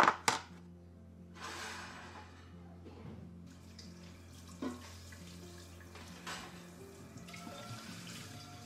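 Tap water running into a sink for a couple of seconds, then more faintly, with sharp clacks of things being handled; a double clack near the start is the loudest sound. Soft background music plays underneath.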